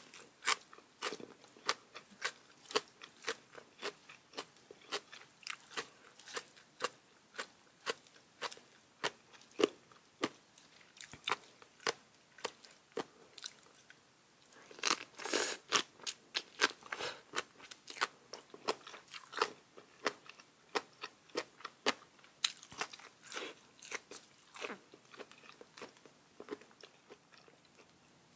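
A person chewing and biting crunchy food in a steady, irregular run of crisp crunches. The crunches come thickest about halfway through and thin out near the end.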